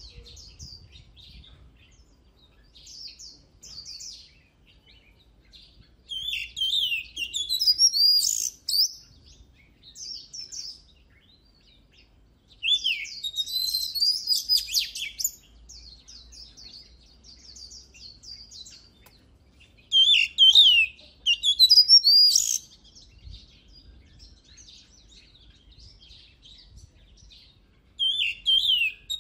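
Oriental magpie-robin singing in loud bouts of varied, gliding whistled phrases a few seconds long, with softer scattered notes in between.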